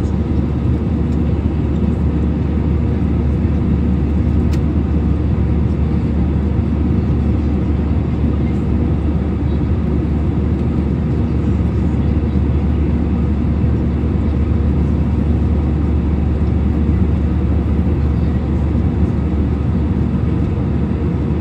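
Steady low rumble of an airliner's engines and airflow heard inside the passenger cabin in flight, unchanging throughout.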